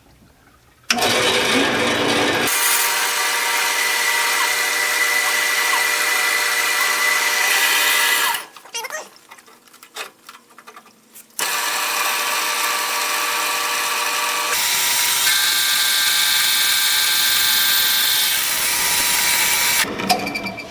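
Jet horizontal bandsaw running and cutting 1¼-inch square steel tubing, a steady power-tool whine. It starts suddenly, stops about eight seconds in, starts again a few seconds later and runs until shortly before the end.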